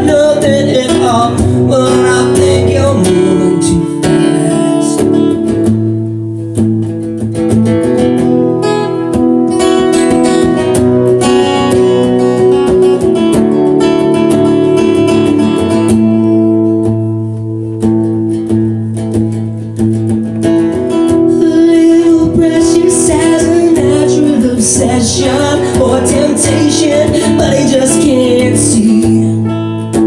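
Acoustic guitar strummed in a steady rhythm, chords ringing through an instrumental passage with a few brief softer moments.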